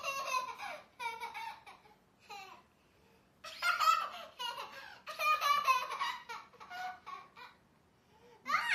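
A toddler shrieking in several high-pitched, choppy bursts, the longest and loudest in the middle.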